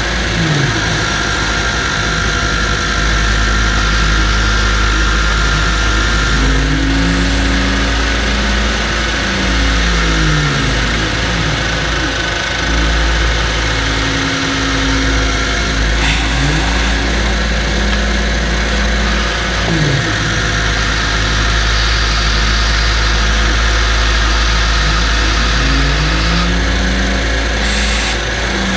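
Shop vacuum running steadily while its flat nozzle sucks metal chips off a milling machine's vise, the pitch of the airflow sliding up and down again and again as the nozzle moves.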